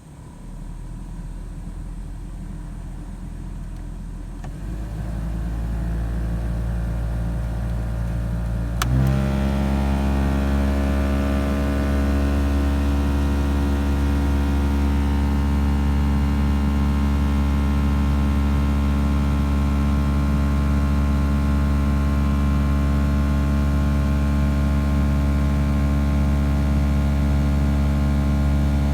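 Mitsubishi Colt Z21A's air-conditioning blower motor running. It steps up about four and a half seconds in, and again with a click about nine seconds in, then settles into a loud steady hum. The uploader puts the car's rumbling air-con noise down to a faulty blower motor.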